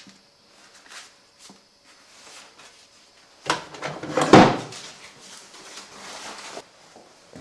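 A drawer yanked open and rummaged through. A few faint clicks come first, then about halfway through a loud clatter and knock, followed by a softer rattle that cuts off suddenly near the end.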